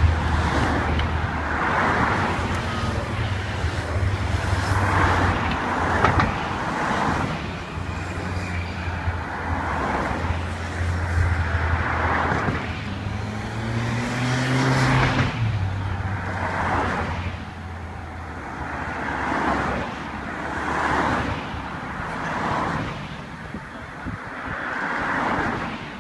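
Tour de France convoy vehicles, team cars and police motorcycles, passing slowly with engines running as a steady low hum, one engine rising in pitch about 14 seconds in. Throughout, a rushing noise swells and fades every second or two.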